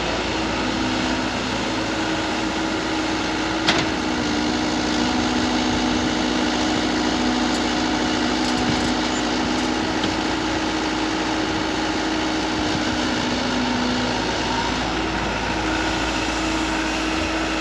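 Excavator engine running steadily at an even pitch, with one brief click about three and a half seconds in.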